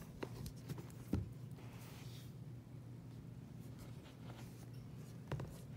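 Handling noise as a hardcover book is turned over in the hands: a few light taps and one louder knock about a second in, and another knock near the end, over a faint low hum.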